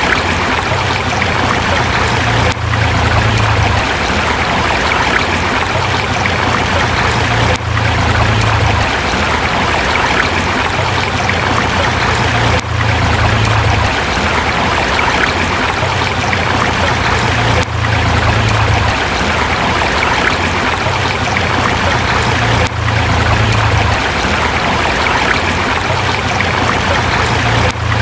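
Forest river rushing steadily over rocks, with a low rumble that comes and goes and a brief dip in level about every five seconds.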